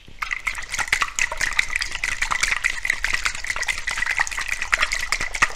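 Sesame dressing being shaken hard in a lidded dressing shaker: fast, continuous sloshing and splashing of the thick liquid against the container.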